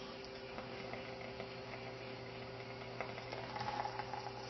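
Quiet room with a steady low hum and a few faint ticks while a man draws on a rebuildable e-cigarette atomizer, then a soft breathy exhale near the end.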